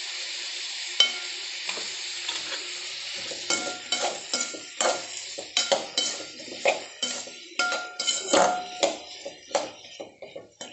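Vegetables sizzling in hot oil in a steel kadai, then a spatula stirring them, scraping and clinking against the metal pan about twice a second with a ringing tone.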